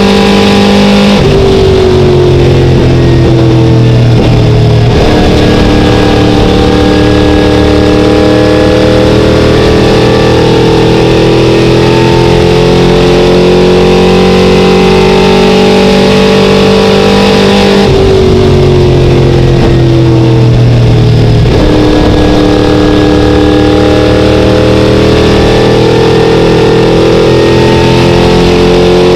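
Very loud in-car sound of an ACT Late Model stock car's V8 at racing speed. The engine note drops as the driver lifts for a turn about a second in and climbs steadily down the straight. It drops again for the next turn a little past halfway, then climbs again.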